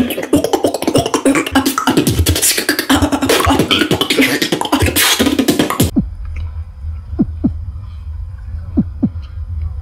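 Solo beatboxing: a fast, dense routine of vocal drum and bass sounds that cuts off abruptly about six seconds in. After that comes a low steady rumble with a few faint short sounds.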